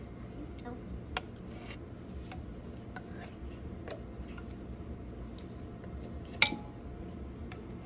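A spoon scraping and knocking inside a metal can while scooping out apple pie filling: scattered light clicks and scrapes, a sharper clink about a second in, and the loudest ringing knock about six seconds in.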